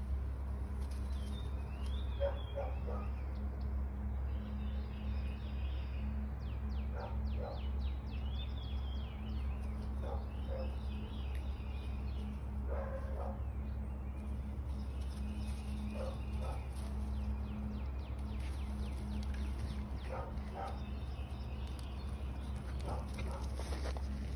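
Two small dogs playing, one giving a short yap every few seconds, with birds chirping in the background.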